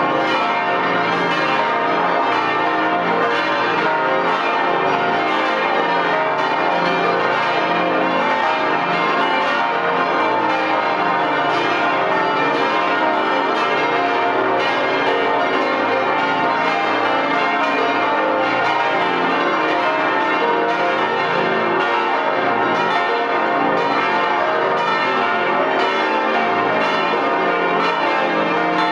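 Full peal of the Stiftskirche Herrenberg's twenty swinging church bells ringing together: a dense, continuous, unbroken mass of overlapping bell strikes, heard from right among the bells in the belfry.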